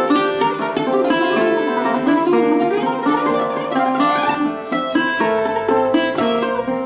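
Two Greek bouzoukis playing together: an improvised taximi in the Ushak mode on A, in quick runs of picked notes.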